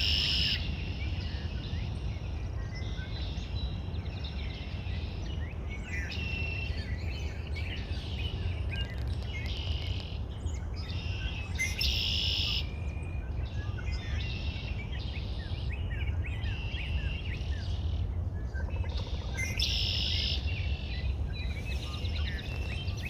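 Several birds chirping and singing, with a louder bird repeating a brief song phrase every few seconds, over a steady low rumble.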